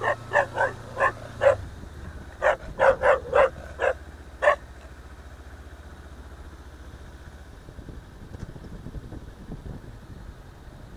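A dog barking: about eleven short, sharp barks in two bursts over the first four and a half seconds, over a low steady hum.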